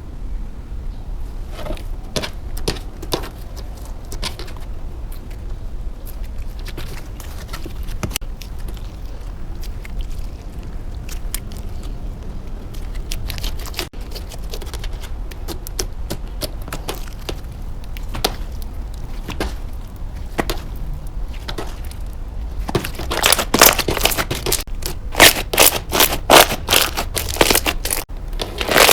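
Slime being squeezed and worked by hand, giving scattered sharp clicks and crackles. About three-quarters of the way through these turn into a rapid run of much louder, crunchy clicks.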